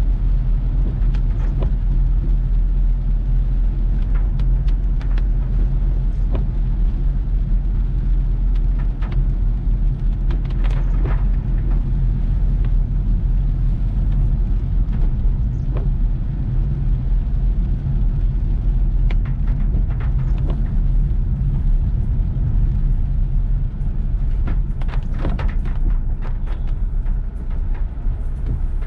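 Car driving in heavy rain: a steady, loud low rumble of engine and road, with scattered sharp taps throughout.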